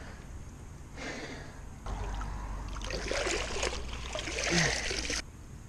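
Bare feet wading through shallow, muddy pond water, sloshing and splashing for a few seconds, then cutting off suddenly.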